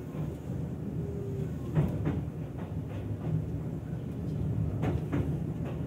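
Izukyu 2100 series electric train heard from on board while running: a steady low rumble of the car on the track, with occasional sharp clacks of the wheels over rail joints.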